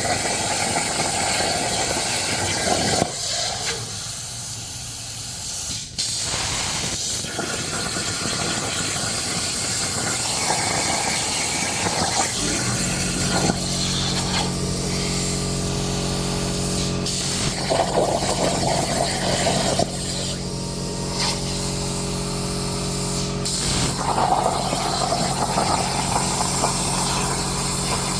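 Plasma cutter cutting a saw blade: a loud steady hiss of the arc and air, broken by brief dips about six seconds in and a few times later. About halfway through, a steady low hum joins in and carries on under the hiss.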